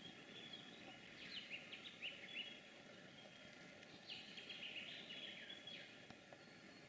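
Faint bird calls: quick chirps and short whistles in two bursts, about a second in and again around four seconds in, over a soft steady outdoor hiss.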